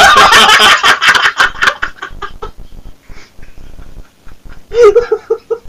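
Two men laughing hard, a loud outburst that fades over about two seconds into muffled chuckles, then another short run of 'ha-ha' laughs near the end.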